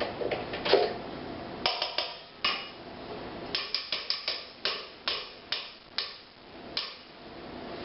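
A utensil knocked repeatedly against the rim of a mixing bowl to clear off thick filling: about fifteen sharp, ringing taps in irregular groups over about five seconds, after a few softer clinks at the start.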